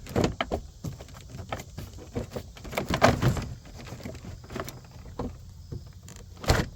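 Plastic interior door panel being lifted and pressed onto a 2007 Chrysler Aspen's door: a run of knocks, clicks and rattles, busiest about three seconds in, with a sharp knock near the end.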